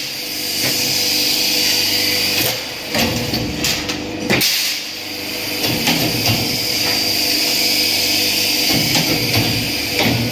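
Metal fabrication workshop noise: a powered machine runs steadily while metal parts are struck and knocked several times at irregular intervals.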